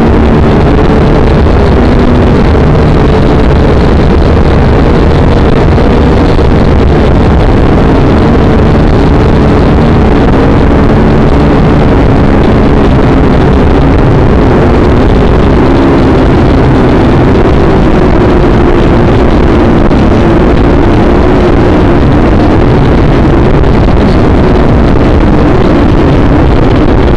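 Small drone's electric motors and propellers running loud and steady, recorded close up by the drone's own camera, the buzzing pitch drifting slightly up and down.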